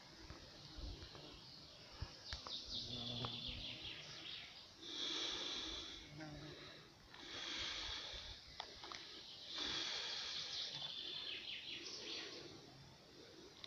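Songbirds singing in the trees, short trilling phrases repeated every couple of seconds over a faint outdoor hum, with occasional low rumbles of wind or handling on the microphone.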